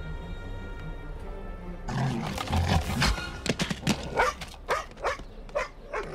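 A film score holds a sustained note, then about two seconds in a dog snarls and breaks into rapid aggressive barking, about three barks a second.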